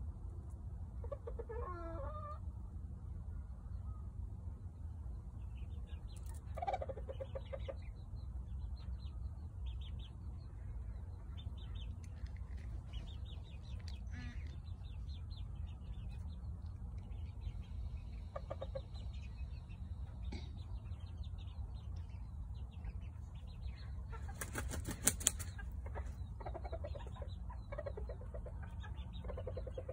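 Serama bantam rooster clucking softly now and then, with a short burst of wing flapping about 25 seconds in.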